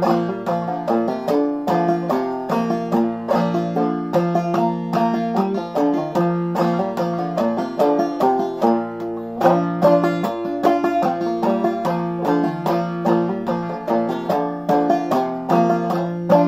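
Open-back banjo played clawhammer style in double C tuning (gCGCD), running through an old-time fiddle tune as a steady stream of quick plucked notes.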